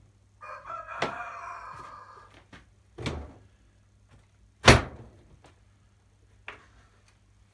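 A wooden window and its frame being handled and fitted together: a squeaky scrape of wood on wood for about two seconds, then separate wooden knocks, the loudest about two thirds of the way in.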